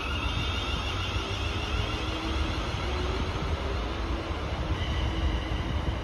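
Class 380 electric multiple unit passing through the station, with a steady rumble of wheels on the rails and a faint motor whine.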